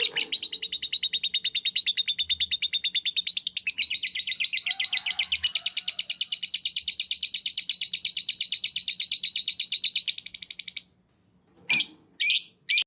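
Cage bird singing one long, rapid trill of evenly repeated high notes. It breaks off about eleven seconds in, then gives three short bursts near the end.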